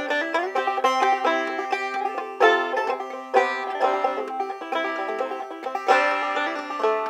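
Five-string banjo played clawhammer style: a steady, rhythmic run of plucked notes, with a few louder accented strokes, in an instrumental break with no singing.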